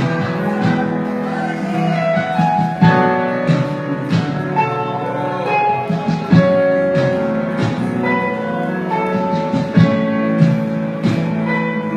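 Instrumental worship music with guitar: held chords with sharp percussive strokes recurring throughout, no singing.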